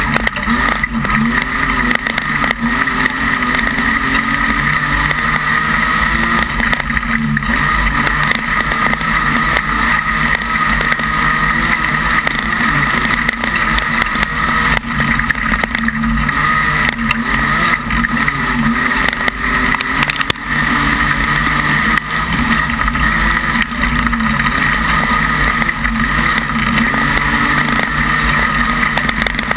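Modified production speedway car's engine running hard during a race, heard from inside the cockpit: loud and steady, its pitch wavering slightly up and down, with wind noise over it.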